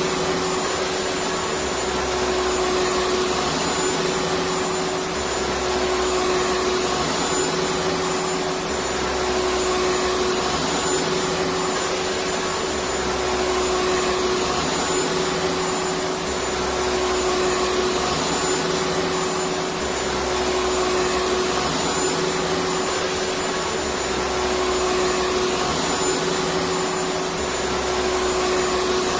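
Vacuum cleaner running steadily: a constant rush of air with an unchanging motor hum and a thin high whine.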